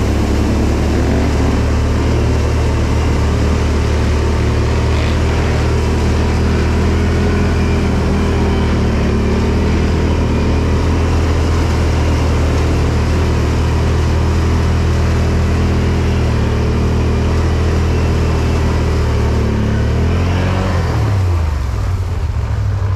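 ATV engine running steadily while riding. Its engine speed drops and then picks up again near the end.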